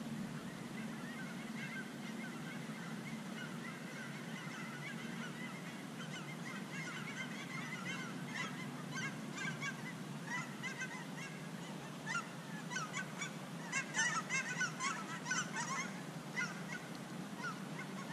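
A flock of geese honking, many short calls overlapping, growing busier and loudest a little past the middle before thinning out.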